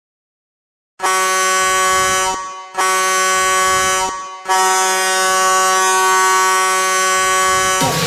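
Ice hockey goal horn sounding three blasts at one steady pitch, starting about a second in: two of about a second and a half, then a long one of about three seconds.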